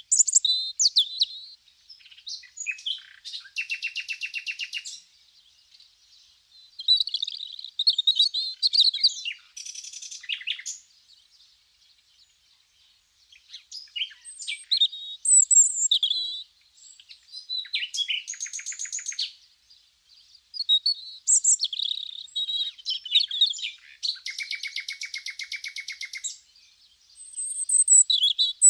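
A songbird singing: short warbling phrases alternating with long, very fast trills, the pattern coming round about four times.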